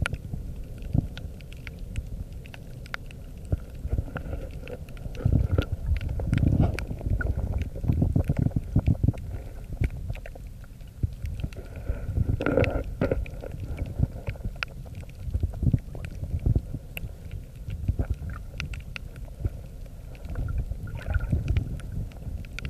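Underwater reef ambience picked up by a submerged phone: uneven low rumbling and sloshing of water that swells and fades, scattered with many short sharp clicks.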